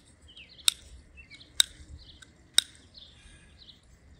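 Garden hose spray nozzle clicked round three times, about a second apart, with faint birds chirping.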